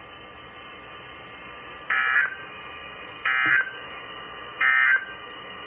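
Three short bursts of Emergency Alert System digital data tones, about a second and a half apart. These are the end-of-message code that closes an alert broadcast. They are heard over a radio with a steady hiss between them.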